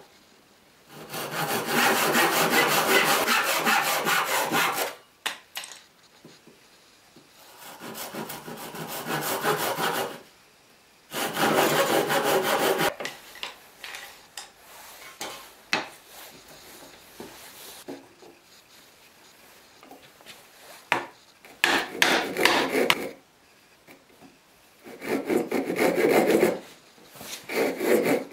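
Handsaw cutting through wood for small plates, in about five bursts of quick rasping strokes separated by pauses with a few short wooden knocks.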